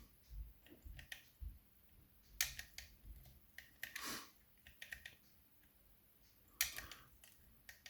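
Faint metallic clicks and scrapes of a pick working the levers of a Century British Standard 5-lever mortice lock under light tension, the levers being lifted one by one. Small clusters of clicks come about two and a half and six and a half seconds in, with a short scrape in between.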